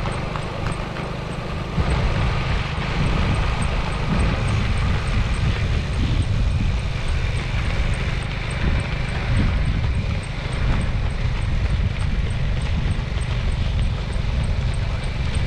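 Lead marathon runners' footfalls on the road under a steady low rumble of wind and vehicle noise.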